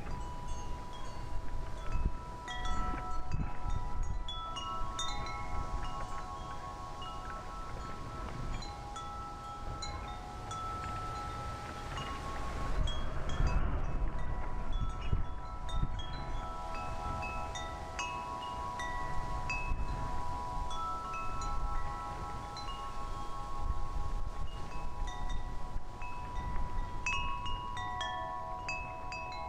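Wind chimes ringing in a breeze, several pitched tones struck at random and ringing on over one another. Wind buffets the microphone underneath, strongest about halfway through.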